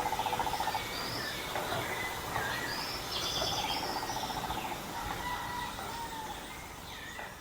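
Forest birds calling over a steady background hiss: two rapid trills, one at the start and one about three seconds in, with short high chirps and whistles between them. The sound fades out near the end.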